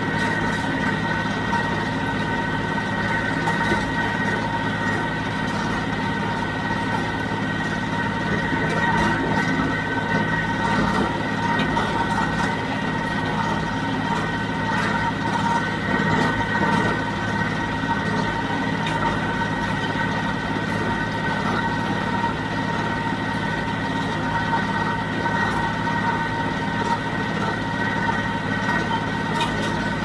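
John Deere 5055D tractor's three-cylinder diesel running steadily under load while driving a John Deere 348 square baler, with a constant high whine over the engine's drone.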